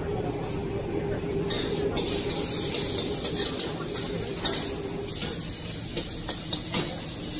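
Big prawns frying in hot oil in a steel wok: a sizzling hiss that comes in about one and a half seconds in and grows stronger from about five seconds, with the metal ladle scraping and clinking against the wok a few times.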